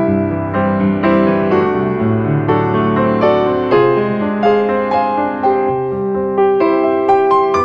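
Background piano music, a melody of single notes struck one after another.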